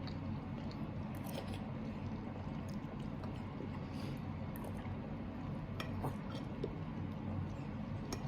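Quiet mealtime sounds: a few faint clicks and clinks of tableware over a steady low hum.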